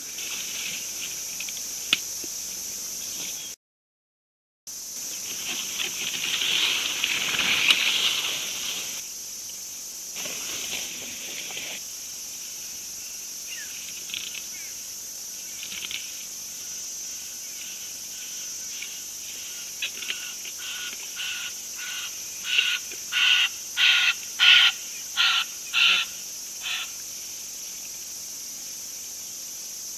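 Steady high chirring of crickets and other insects. A few seconds in comes a louder rustling noise, and near the end an animal calls a series of about ten loud, short notes, roughly two a second, that swell and then stop. The sound cuts out completely for about a second near the start.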